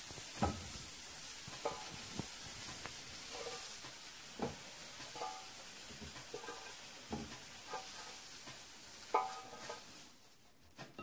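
Food sizzling in a frying pan while a metal utensil stirs it, clinking against the pan now and then. The sizzle dies down near the end.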